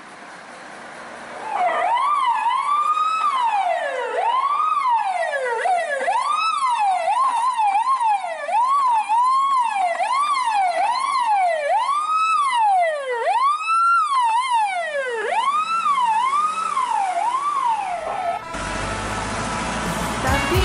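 Fire truck siren wailing up and down, its sweeps uneven in speed, some long and slow, some short and quick, starting about a second and a half in. Near the end it cuts off and music takes over.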